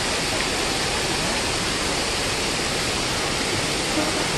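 Water pouring from a large sculpture fountain: a steady rushing splash of falling water.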